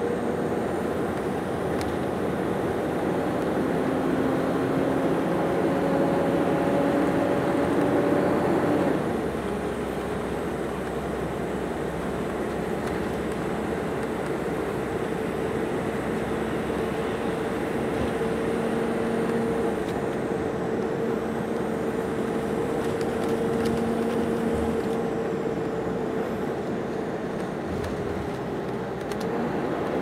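Road and engine noise heard from inside a moving motor vehicle's cabin: a steady rush of tyres and wind with a faint whine that rises slowly, then drops about a third of the way through.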